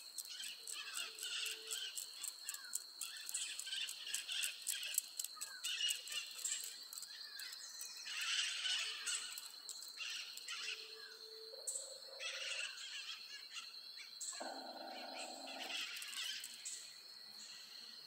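Forest birds chirping and calling, a woodpecker among them, over a constant high-pitched tone. A brief lower pitched sound comes in about fourteen seconds in.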